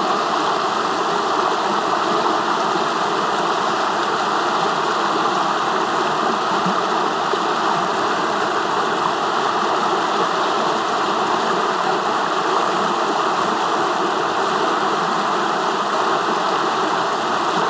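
Rushing water of a fast-flowing stream, a loud, steady rush that does not change.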